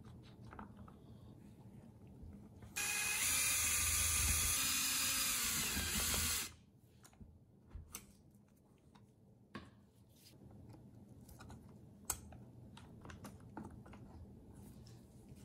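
A screw being spun out of a Homelite Super 2 chainsaw's plastic housing by a driver tool: a steady mechanical whir for about four seconds, starting about three seconds in, its pitch sagging slightly. Afterwards there are a few light clicks of tools and parts being handled.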